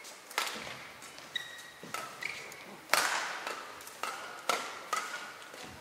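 Badminton rally: rackets strike the shuttlecock back and forth in several sharp hits, the loudest about three seconds in, with short squeaks of players' shoes on the court mat between them.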